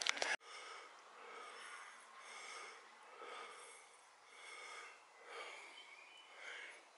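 A brief burst of rustling noise that cuts off abruptly just after the start, then a person breathing heavily close to the microphone, about one breath a second.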